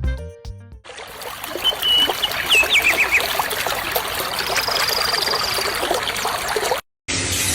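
Water trickling steadily, with a few short high chirps about two seconds in and a thin high whistle in the middle; it cuts off abruptly near the end.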